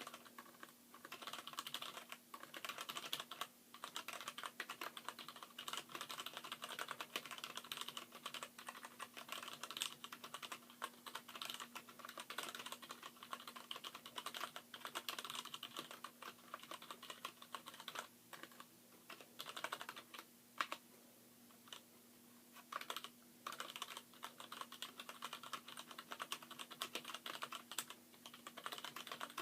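Fast touch typing on a Poker X mechanical keyboard whose alpha keys are Gateron Brown stems and springs in Cherry MX Black housings, the rest stock Cherry MX Blacks, damped by a towel underneath: a rapid, continuous patter of keystrokes. It breaks into a few short pauses a little past the middle, with one sharper, louder key hit among them.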